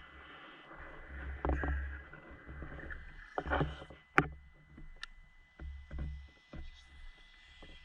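Water sloshing and swishing around a spearfisher's GoPro, with uneven low rumbles and scattered sharp clicks, the loudest a single click about four seconds in.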